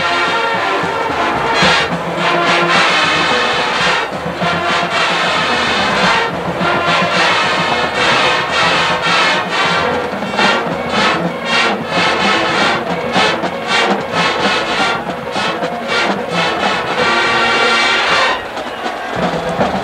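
Marching band brass section, trumpets and trombones, playing a big-band swing arrangement in short punchy rhythmic hits. The brass drops away about a second and a half before the end.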